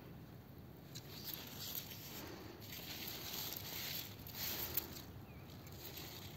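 Faint rustling and handling noise, with a single soft tap about five seconds in.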